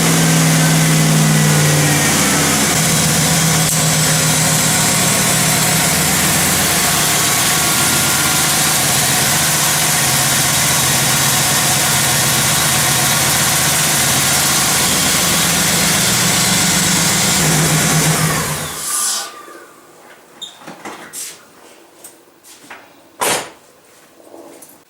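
LT1 5.7-litre V8 engine running steadily with a freshly replaced fuel injector, the misfire gone. It cuts off suddenly about eighteen seconds in, followed by a few sharp clicks and one louder knock.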